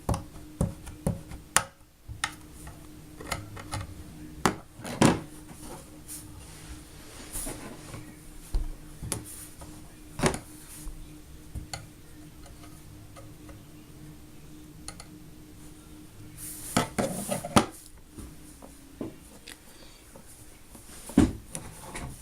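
Scattered clicks, taps and knocks of plastic Play-Doh molds and a plastic Play-Doh knife being handled and set down on a tabletop, with a faint steady hum underneath.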